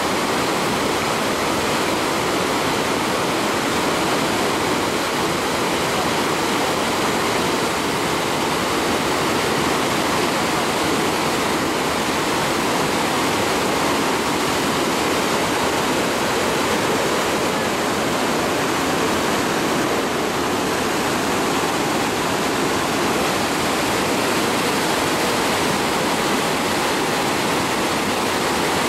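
A river in flood pouring over a concrete weir and churning in the rapids below: a loud, steady rush of water with no let-up.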